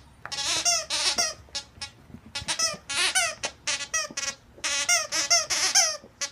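Squeaky plush dog toy squeaking over and over as puppies chew and tug it: quick runs of short, high-pitched squeaks, several a second, with brief gaps between clusters.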